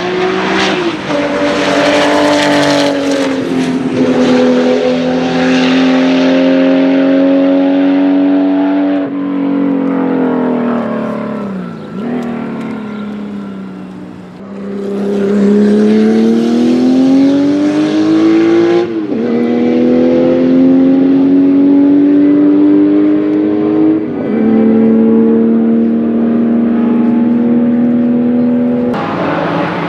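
Porsche 935 K3 race car's 3.2-litre twin-turbo flat-six at full throttle, its engine note climbing and dropping back at each upshift. Around the middle the revs fall away as it slows, then it pulls hard through the gears again.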